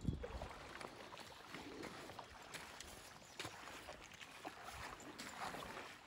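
Faint river water moving around a wading angler's legs, with a few light splashes and ticks scattered through.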